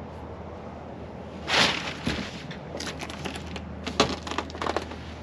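Dry leaves and twigs crunching and crackling underfoot on a boat's cockpit floor: a loud rustle about one and a half seconds in, then a scattered run of small sharp cracks and clicks.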